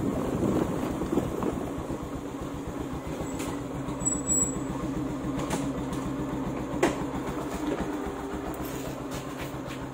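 An engine idling steadily with a low, even hum, with a few sharp clicks over it.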